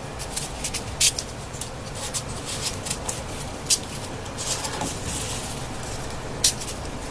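Folded paper triangle units being pushed into a 3D origami model: irregular crisp paper rustles and clicks, the sharpest about a second in, near four seconds and about six and a half seconds in.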